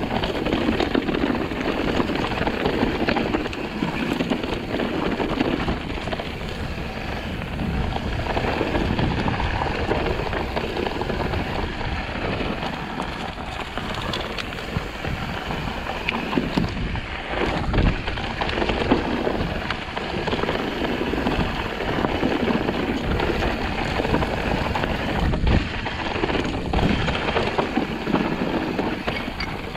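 Mountain bike descending a steep, loose, rocky trail: tyres rolling over dirt and rock with frequent knocks and rattles from the bike, and wind on the microphone throughout.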